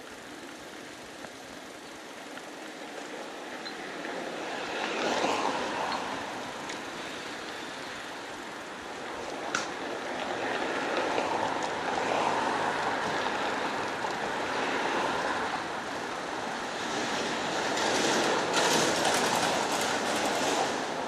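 Street traffic: vehicles passing one after another, each swelling and fading away, with a single sharp click about nine and a half seconds in.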